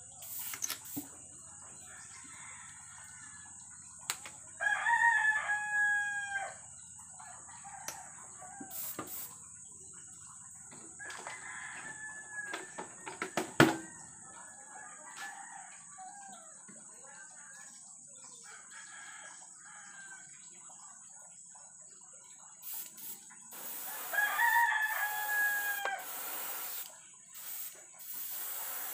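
A rooster crowing twice, about five seconds in and again near the end, each crow about two seconds long and dropping in pitch at its close. A sharp click about halfway through, and short hissing bursts of an airbrush spraying paint in the last few seconds.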